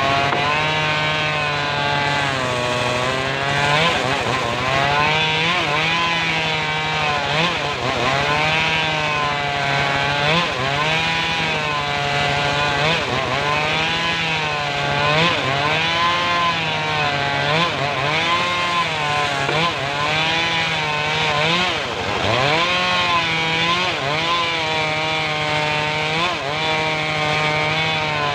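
Engine of a homemade circular-saw rig running under load. Its pitch dips and recovers over and over, about every one and a half seconds, as the blade takes the strain of cutting timber.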